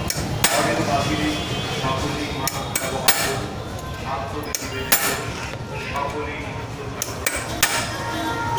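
Scattered sharp metallic clinks and knocks of a hand tool against the bolts and plates of a Bajaj Pulsar motorcycle's exposed clutch as it is taken apart for a clutch-plate change.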